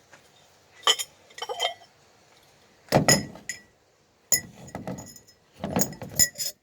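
Metal camp cookware clinking and clattering as it is handled: about six separate knocks, each with a brief metallic ring.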